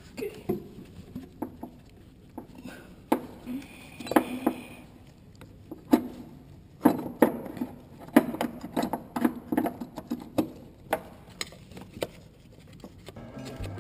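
Hand tools clicking and clanking against metal as a bolt on the water pump is worked in a tight engine bay: irregular sharp clicks with a short squeak about four seconds in, and a quicker run of clicks from about seven to eleven seconds.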